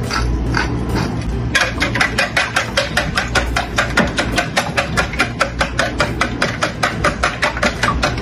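Wire whisk beating eggs in a glass bowl, its tines clicking rapidly against the glass. The strokes are slower and scattered at first, then settle into a fast, even rhythm of about five strokes a second from about a second and a half in.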